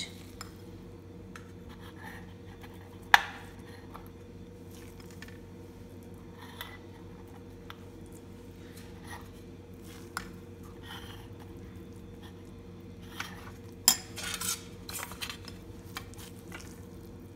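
A spoon clinking and scraping against an aluminium idli stand and a glass bowl as thick batter is spooned into the cups. It gives scattered light clinks, one sharp clink about three seconds in and a small cluster near the end, over a steady low hum.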